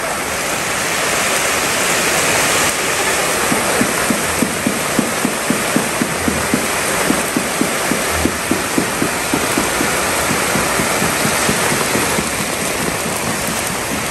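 Heavy tropical rain pouring down onto paving and roofs, a steady loud hiss. For several seconds in the middle a quick regular tapping, about three a second, sounds through it.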